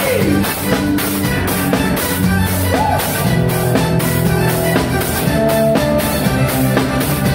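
Live band music: a drum kit keeping a steady beat with evenly repeating cymbal strokes, under held bass and guitar notes.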